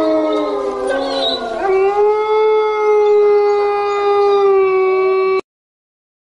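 Long, drawn-out howling: overlapping howls that slide down in pitch, then a new one that rises at about a second and a half and is held steady. It cuts off suddenly about five and a half seconds in.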